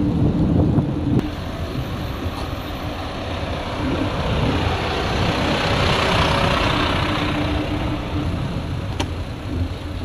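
A large bus's diesel engine idles close by, with a steady hum that swells to a louder hiss around the middle as the bike coasts past it. Before that comes a second of wind on the microphone, and there is a single click near the end.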